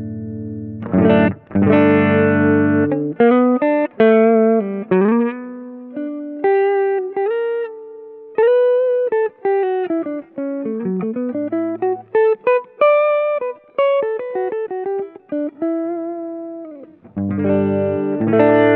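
Clean electric guitar played through the Ampero II Stomp's Compresso compressor, a model of the Ross Compressor, with subtle delay and reverb: ringing chords at first, then a long run of single-note lead phrases with bent and sliding notes, and chords again near the end.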